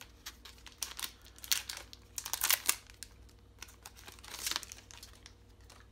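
Trading-card booster pack wrapper being torn open and crinkled by hand, in several short crackly bursts, the loudest about two and a half seconds in.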